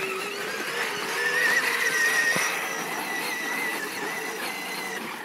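The Power Wheels ride-on Jeep's electric drive motors and gearbox whine as it drives across grass. The pitch wavers slightly with speed and there is a hiss of tyres underneath.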